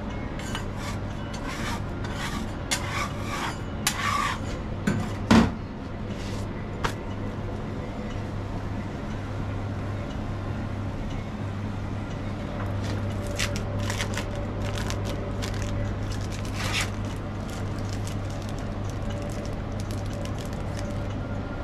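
A metal spatula scraping and clinking against a flat metal griddle for the first few seconds, with one sharp clank about five seconds in. After that a steady low hum with only light scattered handling ticks.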